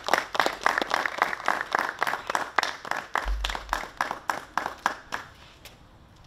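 A small group clapping in applause for an award winner, thinning out and stopping about five seconds in.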